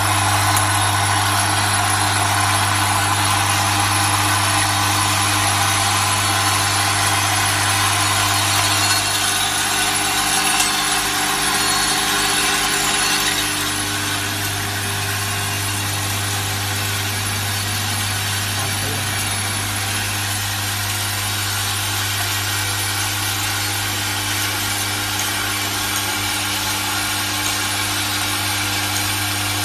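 Automatic bolt-and-washer assembly machine running, with M8x40 bolts rattling and clattering continuously in its vibratory bowl feeder and feed tracks over a steady low hum. It gets a little quieter about halfway through.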